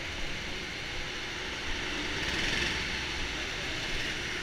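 Go-karts running on an indoor track: a steady, echoing engine drone from several karts at once, swelling as one passes about two seconds in.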